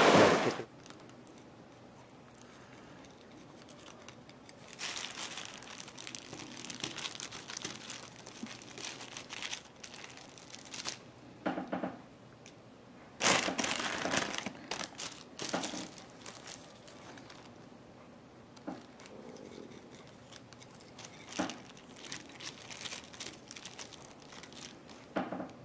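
Thin plastic grocery bag crinkling in irregular bursts as hands handle and clean capelin laid on it. A loud outdoor noise cuts off within the first second.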